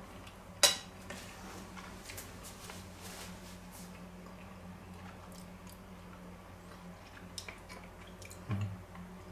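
A person chewing a mouthful of pasta, soft wet mouth sounds and small clicks, with one sharp clink of cutlery on a plate about half a second in and a soft low thump near the end, over a steady low hum.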